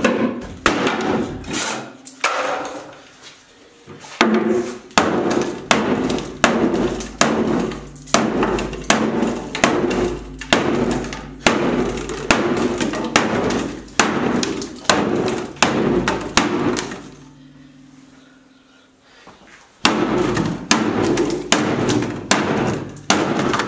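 Claw hammer repeatedly banging on the wooden shelf boards of a bookcase, about two blows a second, with a pause of a few seconds before the blows start again. The boards overlap and jam against each other, so they are being forced out by brute force, a racket of hammering.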